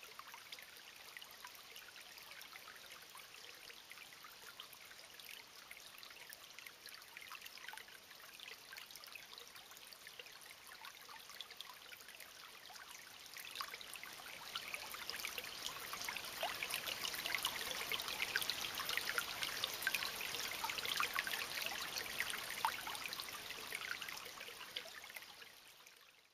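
Water of a small creek trickling and running over stones, a continuous splashy rush that grows louder about halfway through and then fades out at the end.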